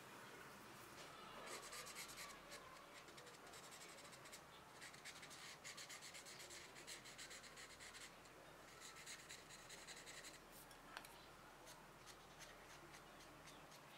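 Faint scratching of a marker pen drawn along a steel knife blank to mark out the edge, in a few spells of short strokes with pauses between.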